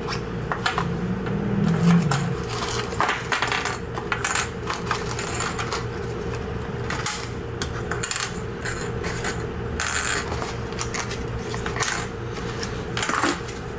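Irregular light clicks and clinks of small hard parts being handled on a workbench, with a steady low hum underneath.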